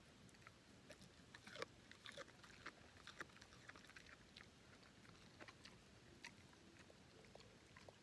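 English setter chewing carrot treats taken from a hand: faint, irregular crunches and clicks.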